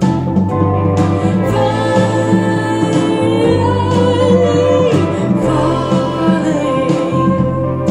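Polk Audio R100 bookshelf speakers playing a jazz-pop song: a woman singing over bass and instruments, at steady loudness.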